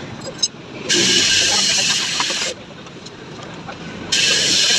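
Compressed air hissing in two steady bursts, the first about a second in and lasting about a second and a half, the second starting near the end.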